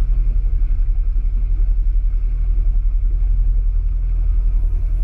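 Mercury 115 Pro XS outboard running steadily at speed, a low drone with a fast, even pulse. It is turning a 21-pitch propeller that the owner says is too low in pitch for the boat to reach its proper speed.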